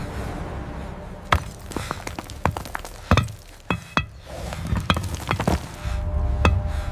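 A series of irregular sharp knocks and clicks, about a dozen spread unevenly over several seconds, over a low rumble.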